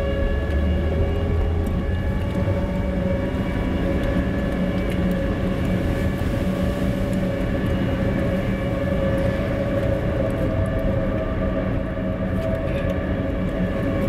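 Outdoor tornado warning siren sounding at a steady pitch, a held high tone with overtones, over a continuous low rumbling noise.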